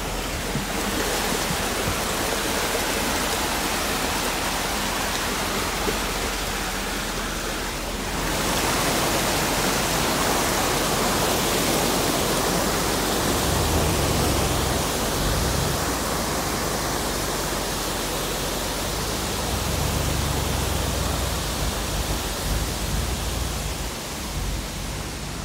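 Stream water rushing and cascading over rocks at a small waterfall, a steady dense rush that grows louder about eight seconds in, with two short spells of low rumble in the middle.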